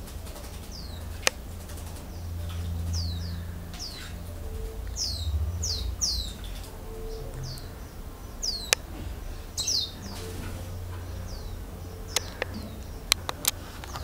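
Small songbird calling: short, high chirps that slur downward, repeated irregularly. A few sharp clicks make the loudest moments, over a steady low rumble.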